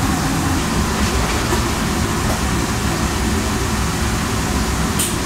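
Steady low hum and hiss of kitchen machinery, with a short sharp click near the end.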